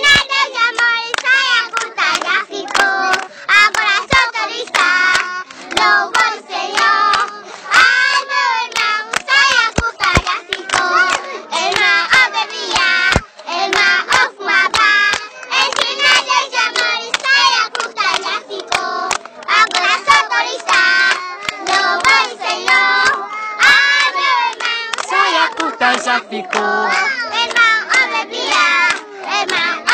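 A group of children singing a praise song together, clapping their hands along with it.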